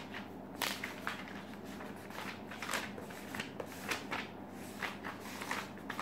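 Paper pages of a notebook being turned and handled: a run of short, dry rustles and swishes, roughly one or two a second.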